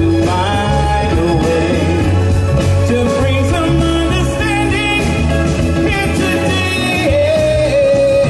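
Live band playing Motown-style soul music with singing, a steady bass line and drum beat under the vocal.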